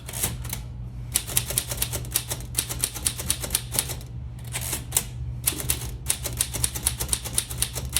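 Keys of a 1940s Royal manual typewriter being typed in a quick, uneven run of sharp clacks, several a second, with brief pauses between bursts.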